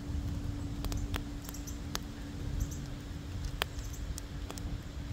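Wood fire in a fire pit crackling: scattered sharp pops, about one every second or so, over a low rumble and a steady low hum.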